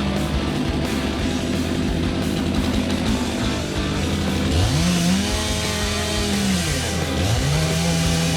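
Two-stroke chainsaw run up to full throttle about halfway through, held, dropped back, then opened up again near the end, mixed with background music.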